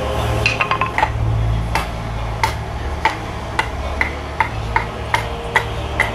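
A wooden baton knocks on the spine of a hand-forged batoning knife, driving the blade through a wooden board. There is a quick flurry of knocks in the first second, then steady single knocks about two a second, each with a brief ring.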